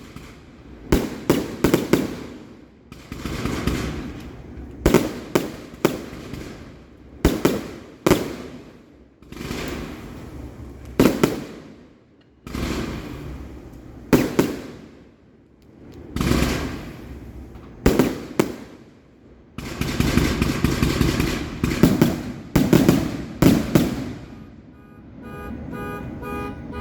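A 58-shot consumer fireworks cake firing: shot after shot of sharp bangs, each trailing off in about a second of crackle. They come every second or two, with a dense volley about three quarters of the way through.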